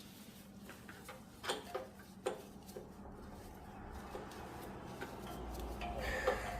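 Small hand-work clicks and taps as carburettor parts and a gasket are fitted back together, two sharper clicks standing out near the middle. A low rumble builds through the second half.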